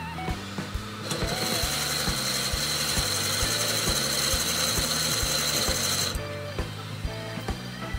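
A drill bit fed from a wood lathe's tailstock bores into a spinning oak blank. The harsh cutting noise, with a steady high whine, starts about a second in and stops suddenly about six seconds in, over background music.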